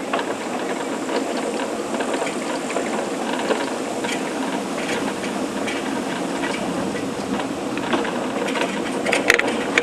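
Summer toboggan sled running fast down a stainless-steel trough track, a steady rattling run noise with a few small clicks.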